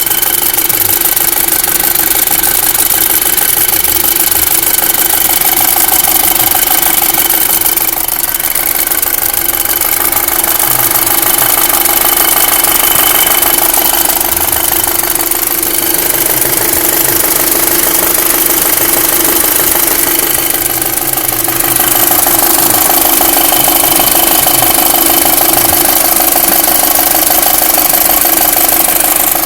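Volkswagen Mk5 GTI's 2.0 TFSI turbocharged four-cylinder engine running steadily, with an unusual mechanical noise that the owner calls strange. The engine's pitch stays constant, and it gets a little louder about two-thirds of the way through.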